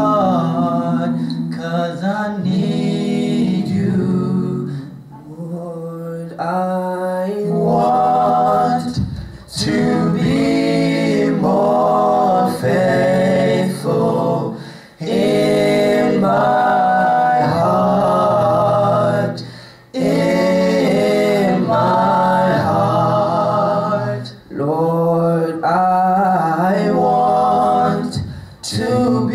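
Voices singing a slow worship song, largely unaccompanied, in long held phrases with short breaks between them.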